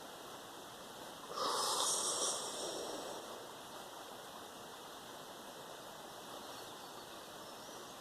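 One forceful breath through the nose or mouth, about a second in, rising suddenly and trailing off over under two seconds, as part of a breathing exercise.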